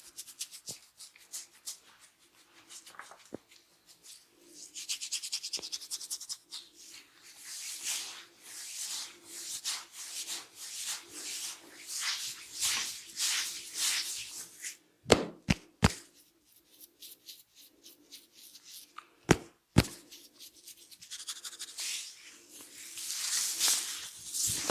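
Hands rubbing and scratching through hair and scalp in quick, dense strokes, as in a head massage. There are a few sharp snaps, three in quick succession about fifteen seconds in and two more about four seconds later.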